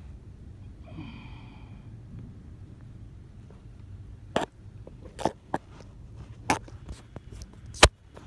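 A series of sharp clunks, about eight at irregular spacing over the second half, the last one the loudest: the clunk from a 2008 Toyota Corolla that the owner is trying to locate. A short high squeak sounds about a second in.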